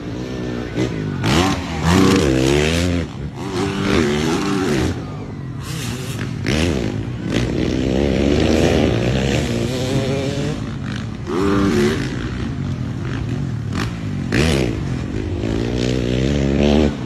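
Motocross dirt bike engines revving hard as they race past, the pitch repeatedly climbing and then dropping with each gear change and throttle lift.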